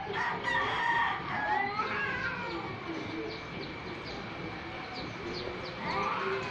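Two cats yowling at each other, a threat standoff on the edge of a fight: long wavering yowls through the first two and a half seconds, and another rising yowl near the end.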